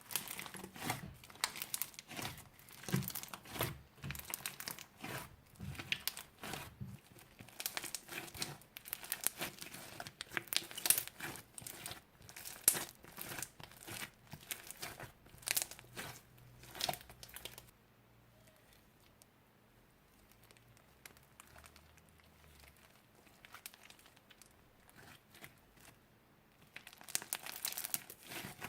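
Thin plastic crinkling and crackling as bags and wrappings are handled in slime making. It comes as a quick run of sharp crackles, drops to faint handling sounds about two-thirds of the way through, and picks up again near the end.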